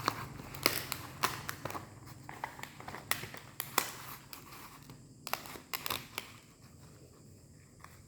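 Irregular clicks and crackling rustles of fresh leaves being handled and folded as herbs are wrapped in them, thinning out after about six seconds, with a faint low hum underneath.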